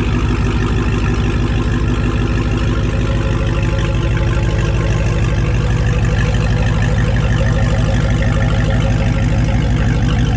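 Supercharged 6.2-litre Hemi V8 of a Dodge Hellcat idling steadily, with a low, even rumble through an exhaust with gutted stock catalytic converters and the mid-muffler deleted.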